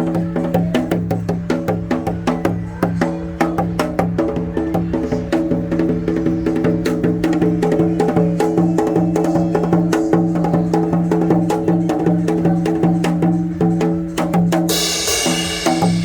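Korean janggu hourglass drum playing a fast trot rhythm of rapid, dense strokes over steady sustained backing tones. Near the end, a cymbal-like hiss comes in.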